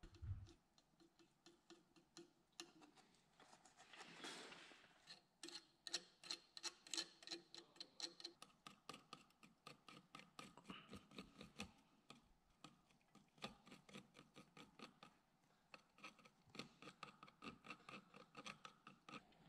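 Faint, rapid, irregular crackling clicks from solder and flux spitting under an electric soldering iron on the flashlight's steel head.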